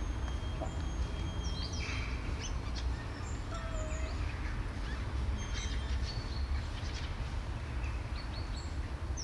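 Outdoor ambience: a steady low rumble with scattered short bird chirps and calls high above it.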